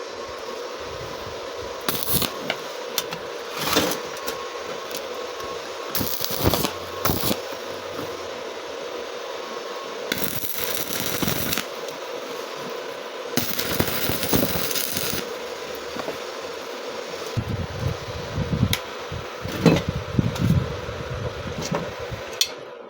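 Electric welder laying several short tack welds, each a crackling burst of one to two seconds, over a steady hum. The tacks lock a door hinge part in place.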